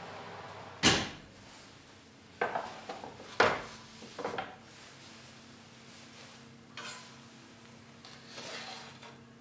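An oven door is shut with a sharp bang about a second in, and the steady oven sound stops with it. A metal baking tray is set down on the hob with a few clanks, and near the end there are faint scrapes as a knife lifts scones off the tray.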